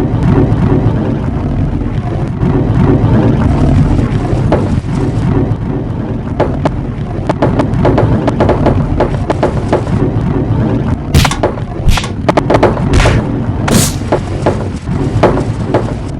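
Marbles rolling along a marble run: a steady rumble, then rapid clicking from about five seconds in, and several louder sharp clacks near the end.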